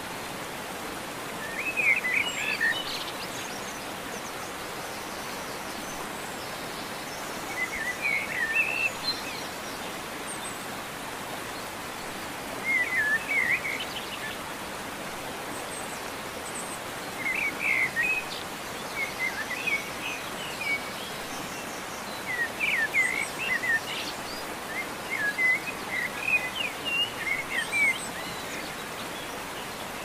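A songbird singing short, quick warbled phrases every few seconds, the phrases coming closer together near the end, over a steady outdoor hiss.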